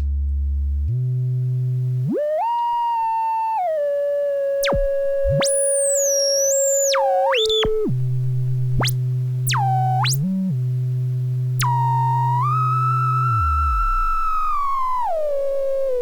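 Two oscillators of a DIY modular synthesizer sound together, their pitches set by a joystick. A low drone steps between a few pitches while a higher tone glides up and down and jumps. Now and then a tone swoops very fast up and down across the whole range, as the pitch control is very sensitive.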